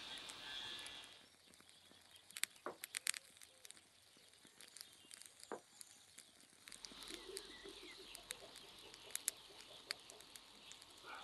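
Hot tea poured from a glass teapot into a small tea glass, the stream stopping about a second in, followed by a few faint clinks and taps of glassware.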